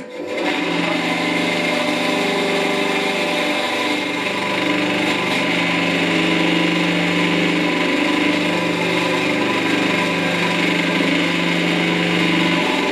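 Parkside PBS 350 A1 benchtop bandsaw switched on with a click, its motor and blade coming up to speed within about half a second and then running steadily with nothing being cut.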